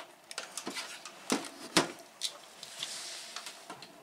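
Plastic clicks and knocks from a small portable TV's case being handled and set down on a desk, with two sharper knocks in the middle and a short hiss about three seconds in.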